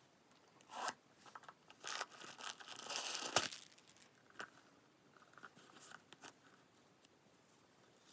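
Metal zipper of a small wristlet being pulled open: a rasp lasting about a second and a half that ends in a sharp click. Lighter rustles and ticks follow as the bag and its cardboard tag are handled.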